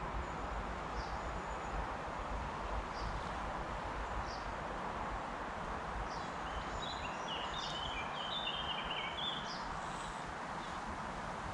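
Birds calling over a steady outdoor hiss: one short high chirp repeats about once a second, and a quick run of song notes comes in from about six and a half to nine and a half seconds in.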